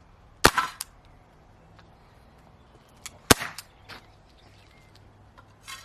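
Two sharp shots from a Walther CP99 CO2 air pistol, about three seconds apart, each followed by a short clatter of smaller clicks, fired at close range at a thick tin of pellets.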